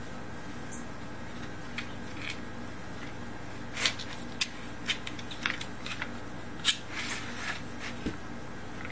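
A cat pawing and scratching at a round plastic track toy with a felt pad and a toy mouse: irregular light clicks and scrapes, the loudest about four seconds in and near seven seconds, over a steady low hum.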